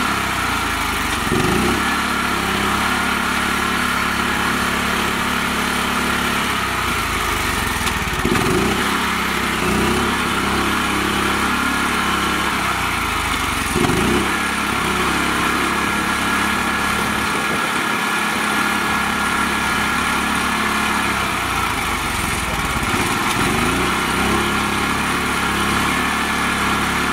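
A homemade mini tractor's small single-cylinder diesel engine runs steadily under load, stuck in mud. It is revved briefly about five times, each a quick rise and fall in pitch, as the driver tries to drive the bogged rear wheels out.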